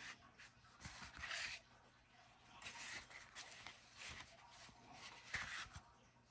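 Hands handling packaging: a series of short, soft rustles and scrapes, the loudest near the end.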